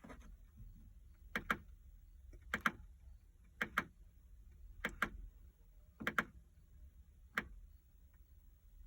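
Sharp double clicks repeating about every second and a quarter, six times, with no engine cranking or running: relay clicking on a Bobcat T595 skid steer that will not start.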